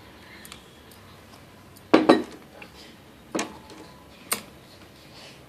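A utensil knocking against a metal baking tin while cake batter is spread in it: two sharp clinks about two seconds in, then two more single clinks over the next couple of seconds.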